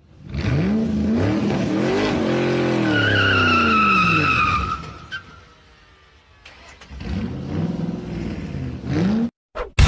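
Sports car engine revving up and down in two passes, with a high tyre squeal, falling slightly in pitch, about three seconds in during the first pass. The sound cuts off abruptly near the end.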